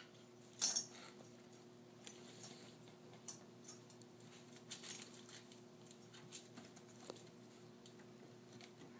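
Kittens playing: faint, scattered pattering and scratching of small paws and claws on the hearth, with a brief louder scuffle just under a second in. A faint steady hum lies underneath.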